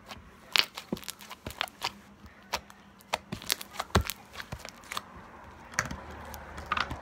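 Hands stretching, folding and squeezing foam bead slime, giving irregular sharp crackles, pops and crunches, the strongest about half a second in and at about four seconds.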